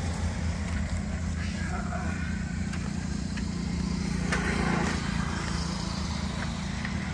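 A steady low mechanical hum, like an engine running, with a few light clicks and rattles from a bicycle being stopped and handled.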